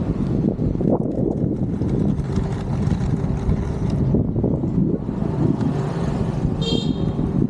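Continuous rough rumble of skate wheels rolling over a road surface, mixed with wind buffeting the microphone. A brief high-pitched chirp comes near the end.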